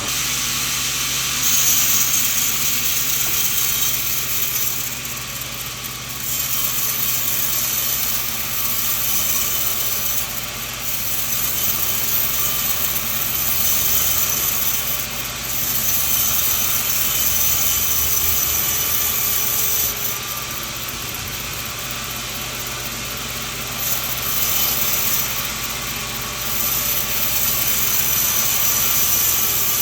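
Sawmill machine running, its saw cutting coconut wood: a steady low machine hum under a loud high hissing that swells for a few seconds at a time and eases in between, several times over, as the blade passes through the log.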